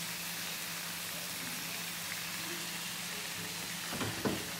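Shrimp frying in a pan, a steady sizzle. A couple of short knocks come about four seconds in.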